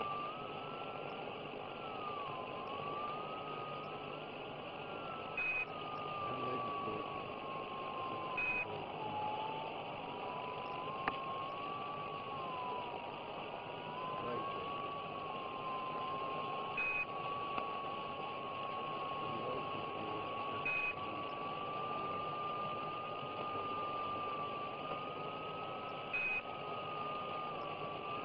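Radio-link static: a steady hiss with a thin whistling tone that drifts slowly up and down in pitch, broken by five short high beeps, mostly in pairs three to four seconds apart, in the manner of the Quindar tones on Apollo space-to-ground radio.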